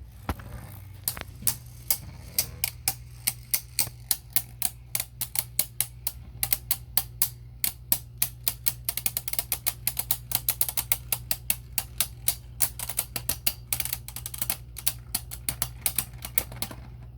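Two Beyblade Burst spinning tops, Archer Hercules and Hazard Kerbeus, battling in a plastic stadium: an irregular run of sharp plastic clicks and clacks as they collide, several a second and thickest in the middle and later part, over a steady low hum.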